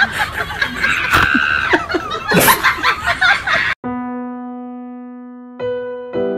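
A busy jumble of noisy sound effects with gliding pitches cuts off suddenly about four seconds in. A piano chord then rings and slowly fades, with another note struck near the end and a fresh chord just after.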